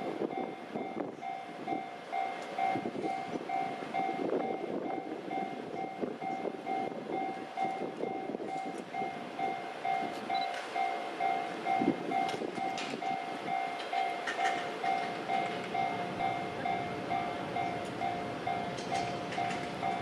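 Japanese level-crossing warning bell ringing as a steady, rapidly repeating electronic ding while the barriers are down for an approaching train.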